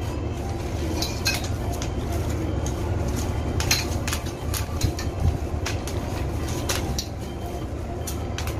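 White tubes of a baby bed rail frame clinking and tapping against each other and the floor as they are handled, a scatter of short sharp knocks over a steady low hum.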